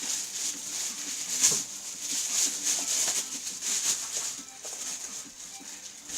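Rustling and crinkling of toy packaging being handled, with scattered clicks and one sharper crackle about a second and a half in.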